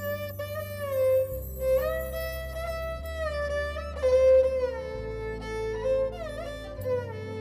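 Background music: a melody with sliding notes over held low bass notes that change every second or two.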